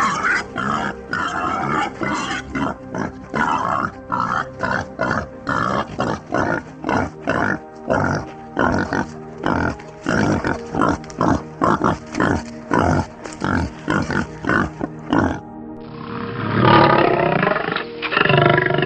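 An animal grunting in a fast, even run of short calls, about two to three a second, over background music. Near the end a different animal call takes over, longer and louder.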